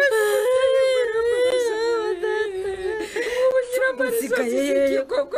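A woman wailing in grief, long wavering high-pitched cries that run on with hardly a break.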